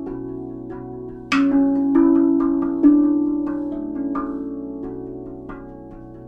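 RAV steel tongue drum played by hand: single struck notes in a slow, unmetred melody, each ringing on long and overlapping the next, with one brighter, louder stroke about a second in.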